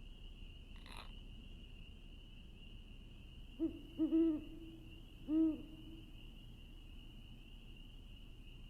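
An owl hooting four short times in the middle, each hoot rising and falling in pitch, over a steady high-pitched trill; a single soft click about a second in.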